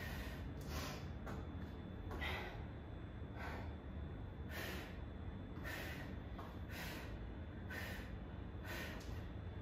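A woman breathing hard from exertion during kettlebell lunges: short forceful breaths about once a second, one with each lunge.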